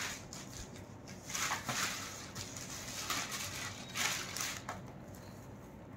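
Thin plastic carry bag rustling and crinkling in several short bursts as a gift-wrapped box is handled and pulled out of it.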